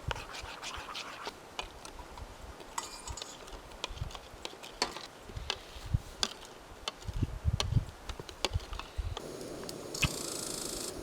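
Camp gear being handled for breakfast: scattered sharp clicks, taps and scraping, with a few dull knocks. Near the end a steady hiss starts.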